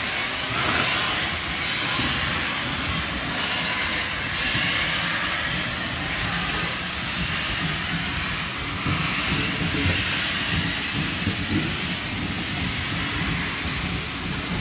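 Steam hissing as a steam-hauled train pulls past, its coaches rolling by.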